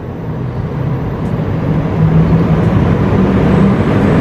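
A vehicle engine running with a low hum, growing steadily louder.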